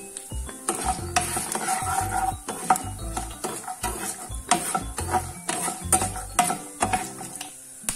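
Metal spoon stirring and scraping raw peanuts and chana dal around a non-stick frying pan, with quick clinks of the spoon and nuts against the pan over a light sizzle of hot oil. The stirring starts about a second in and stops just before the end.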